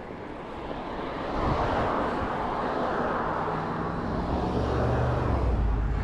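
A car driving past on the road beside the bicycle, its tyre noise swelling from about a second in, with a low engine hum in the last couple of seconds.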